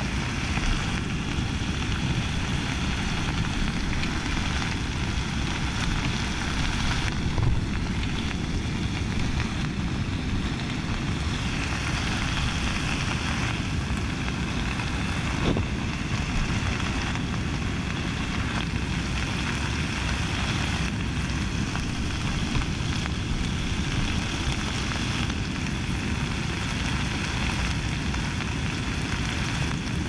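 Pieces of meat sizzling in a camping pot over a portable gas stove, a steady crackling hiss with a low, even rush underneath.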